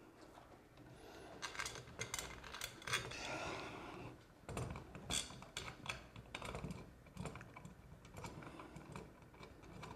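Light, irregular clicks and taps with some rubbing as a metal ceiling fan mounting bracket and its wires are handled against the ceiling box.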